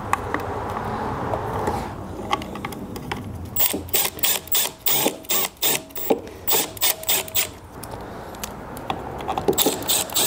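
Milwaukee cordless driver spinning the air-filter housing bolts into a lawnmower engine through a long socket extension, in short trigger bursts with sharp clicking, about four or five a second from about a third of the way in, and again near the end.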